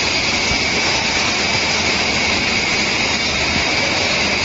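Steady machine noise: an even hiss with a constant high whine, unchanging throughout.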